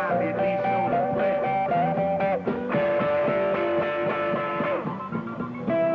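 Blues band playing live without vocals, long held notes that bend down at their ends over a steady accompaniment.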